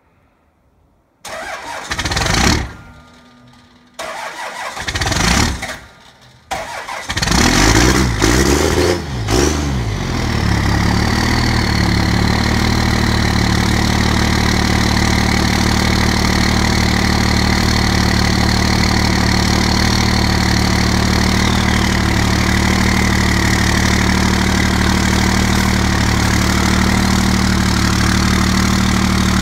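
Dodge Ram pickup's Cummins diesel cold-starting: it cranks in three bursts, catches about eight seconds in with a brief rise in revs, then settles into a steady idle. A faint high whine rides over the idle and falls away about twenty-two seconds in.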